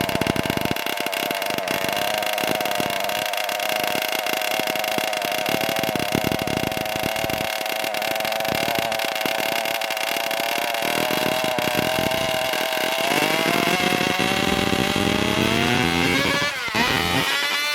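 Two-stroke racing chainsaw running flat out, a steady high-pitched engine scream. In the last few seconds the pitch drops and wavers as the throttle comes off and is blipped.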